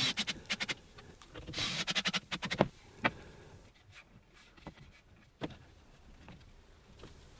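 Light handling sounds of wooden stool parts and a bar clamp on a workbench. There is a quick run of small clicks at the start and a short scraping rustle about two seconds in, then a few separate clicks and knocks as the stool top is set on its frame and a one-handed bar clamp is fitted to it.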